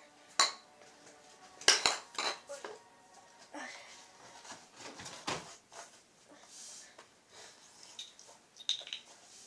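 Plastic bottles and small items clacking as they are picked up and set down on a tiled floor: a sharp clack about half a second in, a cluster of knocks around two seconds, and a few more near the end, with softer scuffs between.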